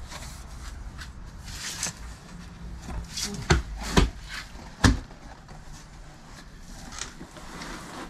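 Large cardboard shipping carton being handled: rustling with three loud thumps in the middle, about half a second to a second apart.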